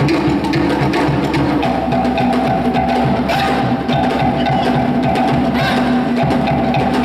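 Tahitian drumming: a fast, dense rhythm beaten on wooden slit drums (to'ere), with a steady tone joining about two seconds in.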